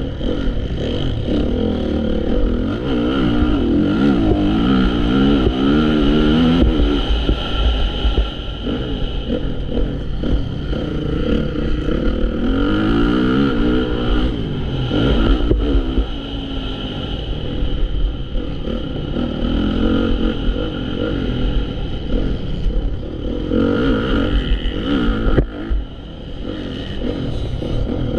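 Honda CRF450 motocross bike's four-stroke single-cylinder engine being ridden hard, its revs climbing and falling again and again as the throttle opens and closes. The level dips briefly near the end.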